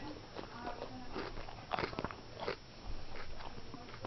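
Hermann's tortoise making irregular crunching clicks, several close together about two seconds in and again near the end.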